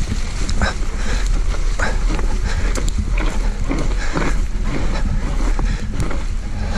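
Riding noise from a Focus Jam2 electric mountain bike on a snowy trail: wind rushing over the bike-mounted microphone and tyres rolling through snow, with frequent clicks and rattles from the bike over the rough ground.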